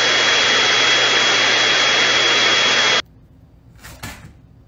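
Handheld electric pet grooming tool running steadily, a loud hiss with a high steady whine, cutting off abruptly about three seconds in.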